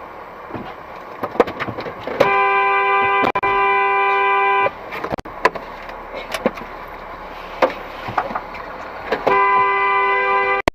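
A vehicle horn blown twice in long steady blasts, the first about two and a half seconds long and the second about a second and a half near the end. Scattered knocks and clatter sound between the blasts.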